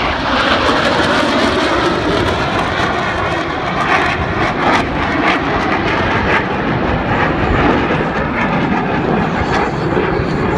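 Jet engines of USAF Thunderbirds F-16 Fighting Falcons running, a loud, steady roar of jet noise.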